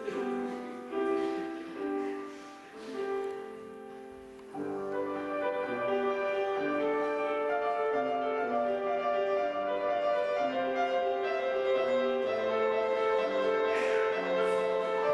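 Grand piano playing: short separate chords with brief gaps between them, then from about four and a half seconds in a continuous flowing accompaniment.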